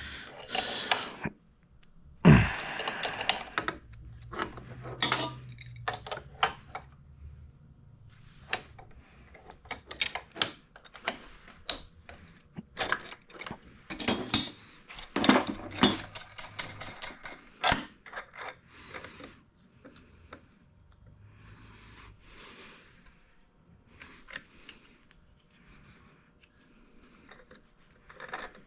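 Metal hand tools and engine parts clinking, clicking and clattering against each other in an irregular run, with a few short scrapes, as a crankshaft-pulling tool and wrenches are handled on a scooter engine case.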